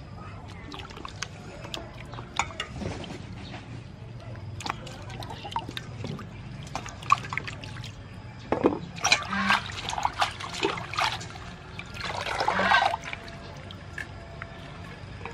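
Water splashing and sloshing in a stainless steel bowl as lettuce, limes and chilies are washed by hand, with louder bursts of splashing about nine to eleven seconds in and again around twelve seconds.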